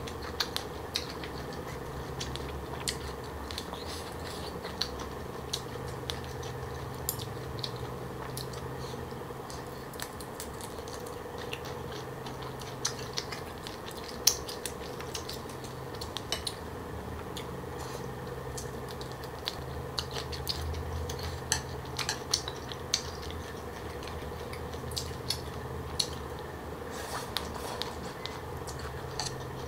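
Close-miked eating: crunchy chewing of green papaya salad with pig's ear and shrimp, with many short sharp clicks and crunches from chewing and chopsticks over a steady low hum.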